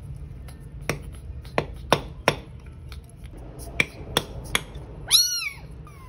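A series of sharp knocks as a metal tool is worked against a steel floor-drain grate, about seven in all, then one loud rising-and-falling meow near the end from a stray kitten trapped in the drain pipe.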